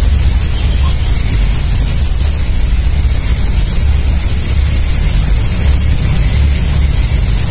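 Wind buffeting the microphone: a steady, fluttering low rumble, under a constant high-pitched hiss.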